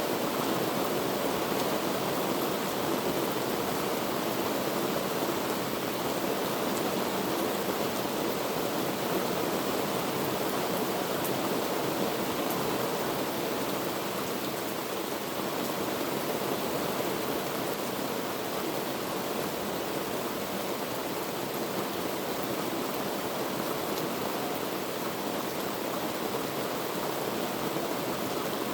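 Heavy rain falling in a steady downpour, a dense even hiss with faint scattered ticks of drops.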